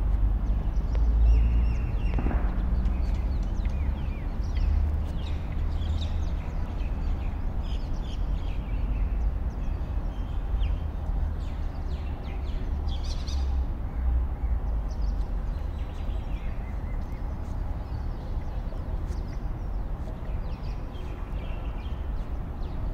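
Many short bird calls and chirps in a garden with peafowl, over a steady low rumble.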